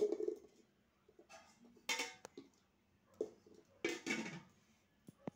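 A steel spoon and stainless steel dishes being handled: several brief scrapes and clatters about a second apart, then a sharp click near the end.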